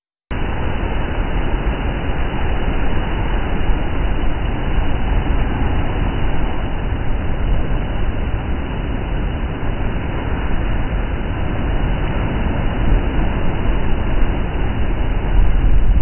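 Sea surf breaking and washing over rocks: a steady rumbling rush of churning waves, growing a little louder near the end.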